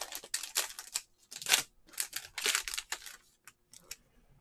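Trading-card pack wrapper crinkling and tearing as it is ripped open, in several sharp rustling bursts over the first three seconds. After that come a few faint clicks as the cards are handled.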